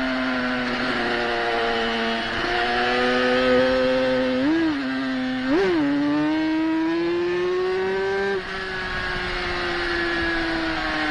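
350 cc racing motorcycle engine running hard on track, heard from the rider's seat. Two quick throttle blips just before halfway, then the revs climb steadily and drop sharply with a gear change about three-quarters of the way through.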